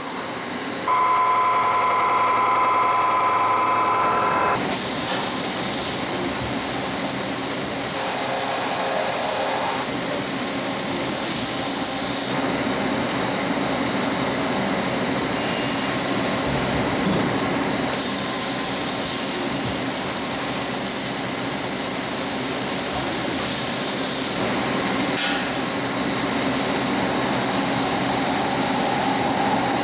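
Mazak FH-580 horizontal machining center running through a pallet change. A steady whine for the first few seconds, then continuous machine noise with hissing that switches on and off every few seconds.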